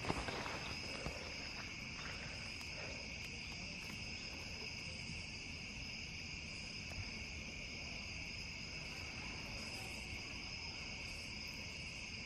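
Steady, high-pitched chorus of insects trilling without a break, faint.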